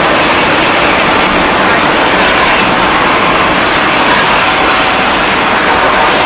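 Loud, steady rush of a river in flood, the swollen water pouring past with no break.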